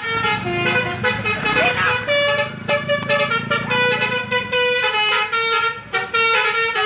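A bus's telolet musical horn playing a quick, loud tune of changing notes, with the bus's engine running low underneath for about the first half.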